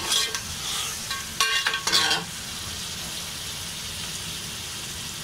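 Raw chicken pieces frying in hot ghee in a metal pot: a steady sizzle, with a slotted metal spatula scraping and clinking against the pot at the start and again about a second and a half in, then the sizzle alone.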